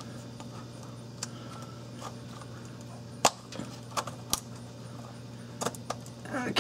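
Scattered light clicks and taps from hands working a rubber grommet along metal transmission cooler lines, with the sharpest knock about three seconds in, over a steady low hum.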